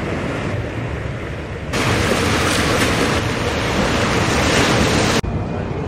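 Ocean surf with wind noise on the microphone, a steady rushing hiss. It grows louder about two seconds in and cuts off suddenly near the end.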